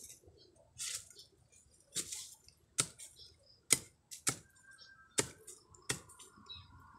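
Sharp cracks and snaps, about seven at irregular intervals, as the tough outer sheaths of a young bamboo shoot are broken and stripped off.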